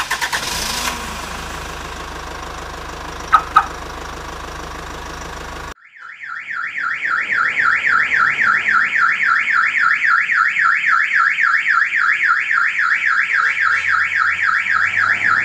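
Toyota Calya's car alarm siren going off: a loud, rapid up-and-down warble that starts about six seconds in. Before it there is a steady low hum with two short beeps about three seconds in.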